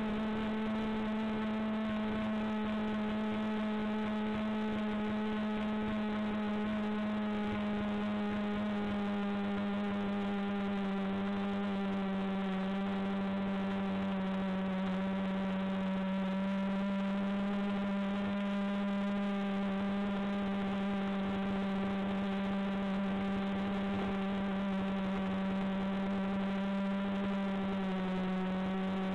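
Multirotor drone's electric motors and propellers humming steadily in flight, a single buzzing pitch with many overtones that sags and recovers slightly a couple of times as the throttle shifts.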